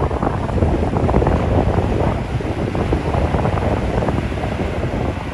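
Wind buffeting the microphone, with the wash of sea waves under it.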